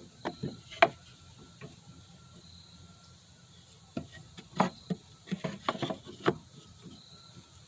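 Pieces of wood being handled and knocked against a workbench: a few sharp knocks in the first second, then a run of knocks and clatters between about four and six and a half seconds in.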